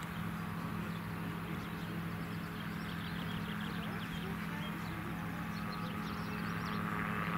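AutoGyro MTO Sport gyroplane's engine and pusher propeller droning steadily as it climbs away after takeoff, growing a little louder near the end.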